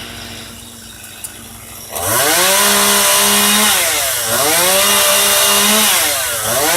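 Chainsaw running low, then revved to full throttle about two seconds in. It is held for a second or so, drops back, and is revved up again twice more.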